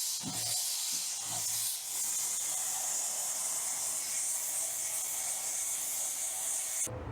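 Compressed air blowing from an air nozzle, a steady high hiss that gets stronger about two seconds in and cuts off sharply near the end, with a couple of faint knocks at the start.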